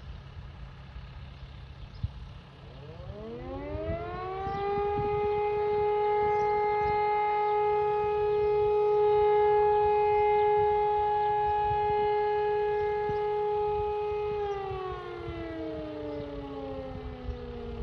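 Two electromechanical civil-defence sirens, an E57 and a Sachsenwerk, sounding a test signal together. They wind up about three seconds in and hold a steady, loud tone at two slightly different pitches, then begin to wind down near the end.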